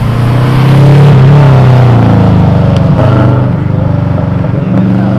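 A car engine running loud and close, its pitch rising and dipping, loudest about a second in.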